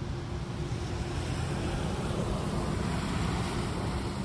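Street traffic: a car passing, its sound swelling through the middle and easing off toward the end, over a steady background of road noise.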